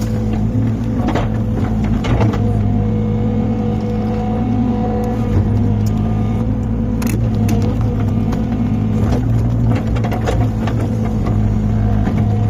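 Excavator's diesel engine running steadily under load, with a few sharp knocks or cracks, the clearest about seven seconds in.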